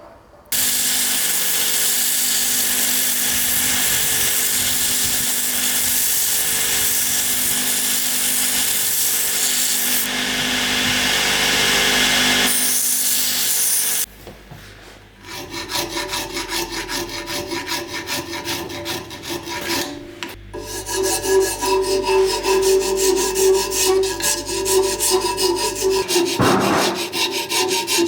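Shaping a wooden sword handle: a steady, even sanding noise for about the first half, then a rasp worked over the wood in quick, rhythmic strokes.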